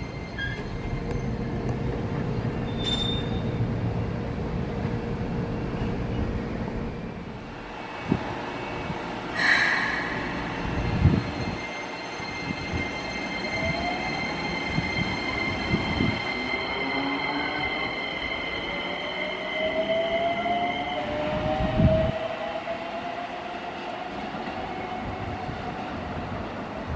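Keikyu 1000-series electric train running through the station: a low rumble of the cars for the first several seconds, then a steady high-pitched wheel squeal, and a rising motor whine as the train picks up speed, with a few dull thumps along the way.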